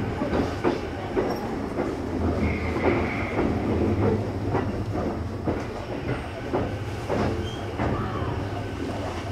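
Sanyo Electric Railway 6000 series train heard from inside a trailer car as it pulls into the terminus platform: a steady running rumble with irregular clicks of the wheels over rail joints, and a brief squeal about two and a half seconds in.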